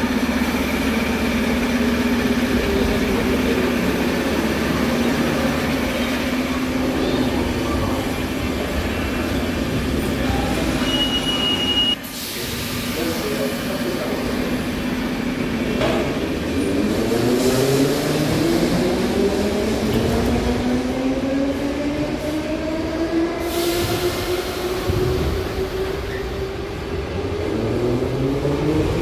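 Moscow Metro 81-717/714 train pulling out of the station, its traction motors whining in several tones that rise together as it gathers speed through the second half. Before that, a steady hum from the trains standing at the platform, and a short hiss about two-thirds of the way in.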